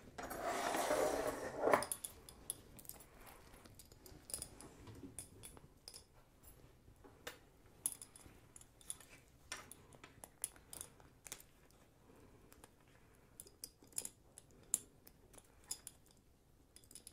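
A choker with a small attached lock being handled and fastened around a statue's neck: a rustling scrape of about two seconds ending in a sharp click, then scattered small clicks and clinks of the lock and clasp.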